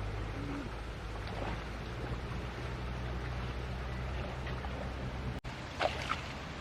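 Steady rushing outdoor noise with a low rumble. It cuts out for an instant about five seconds in, and a couple of short sounds follow just after.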